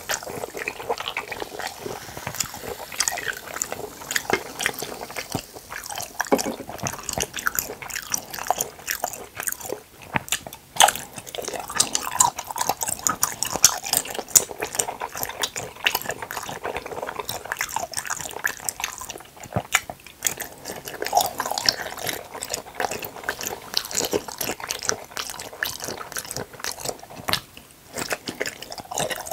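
Close-miked wet eating sounds of jelly cups: the soft jelly squishing as it is pulled from the plastic cups, bitten and chewed, with lip smacks and small sucking clicks. At the start, cola pours from a can into a plastic cup.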